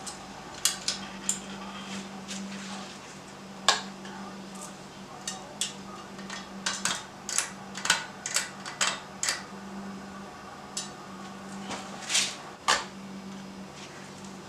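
Hunter ceiling fan's AirMax motor running on a wall speed control with a steady low hum. Irregular sharp clicks and clinks sound over it, a dozen or more, the loudest about four seconds in and near twelve seconds.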